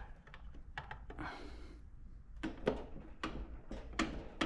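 Hand tools and engine parts knocking and clicking against the stripped crankcase of an air-cooled single-cylinder diesel. A few faint clicks come in the first second or so, then louder, irregular knocks about every half second in the second half.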